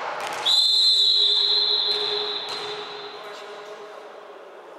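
Volleyball referee's whistle: one long, high whistle blast starting about half a second in, holding steady and then fading away over a couple of seconds.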